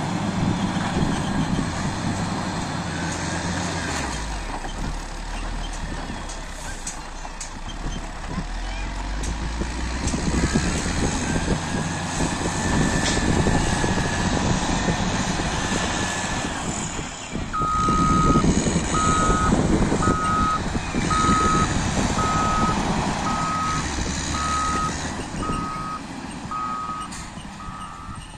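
Caterpillar 120K motor grader's diesel engine running as it works the ground. From a little over halfway through, a reversing alarm beeps steadily, a little more than once a second.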